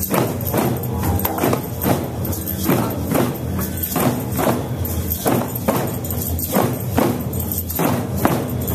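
Drum circle of hand drums, djembes and a frame drum among them, played together in a steady beat of about two strikes a second.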